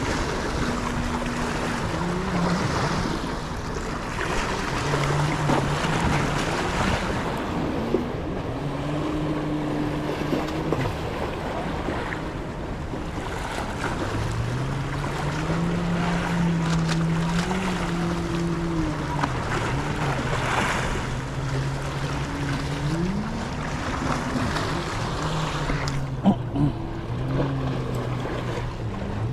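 Motorboat engine hum that slowly rises and falls in pitch as the boat changes speed, over wind and waves. A couple of sharp ticks near the end.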